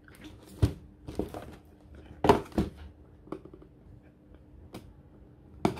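A cardboard model-kit box is handled and its tape seal is slit with a small folding knife: a string of separate taps, knocks and scrapes, loudest a little over two seconds in.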